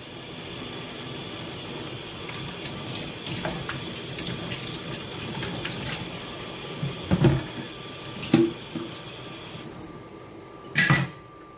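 Kitchen tap running into a sink, with a couple of dull knocks from things handled under it; the water stops shortly before the end, followed by one sharp knock.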